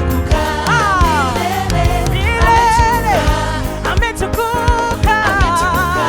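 Upbeat gospel praise music: voices singing a melody over a band with a steady drum beat.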